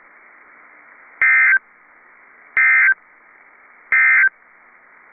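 Three short bursts of NOAA Weather Radio SAME digital data tones, evenly spaced about 1.3 s apart, over faint radio hiss. This is the end-of-message code that closes a warning broadcast.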